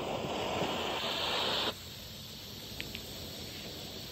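Warrior Fireworks Fury fountain, a consumer ground fountain, lit and spraying sparks with a loud rushing hiss. About a second and a half in it drops suddenly to a quieter steady hiss, with a couple of faint crackles.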